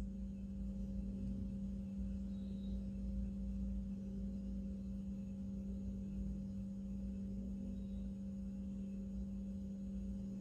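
A steady low hum, one held tone that never changes, over a faint low rumble: room tone with no speech.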